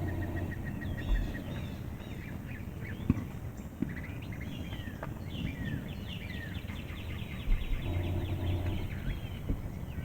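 Songbirds singing and chirping in a spring field: a rapid trill near the start, then many overlapping chirps in the second half. A low hum lasting about a second comes near the end, and there are a few light clicks.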